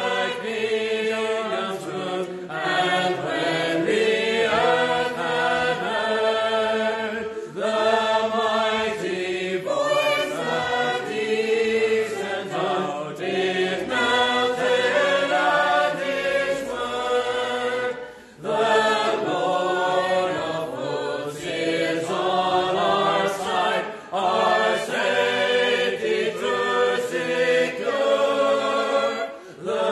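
Church congregation singing a metrical psalm unaccompanied, led by a man's voice, the notes held long and steady with brief breaks between lines.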